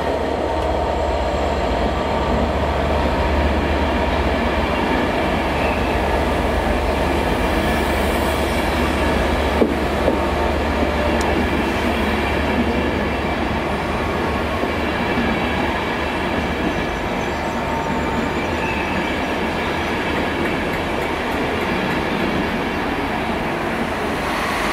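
Loco-hauled passenger train of Transport for Wales coaches, led by a class 67 diesel locomotive, rolling past along the platform: a steady rumble of wheels on rail.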